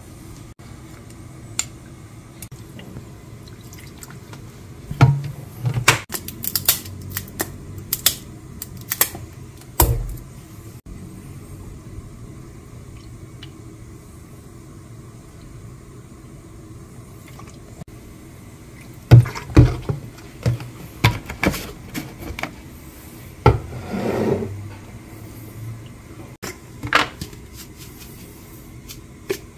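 Kitchen handling sounds as a thick chili-paste seasoning is made: a wooden spoon knocks and scrapes against a ceramic bowl, and bottles and jars clink and are set down on the counter. The knocks come in two busy spells, one a few seconds in and one past the middle, with a short rushing sound among the second.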